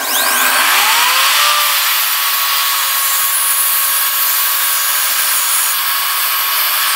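Evolution mitre saw starting up, its motor whine rising over the first second and a half, then running at full speed with a loud hiss as the blade cuts a 45-degree corner off a melamine board.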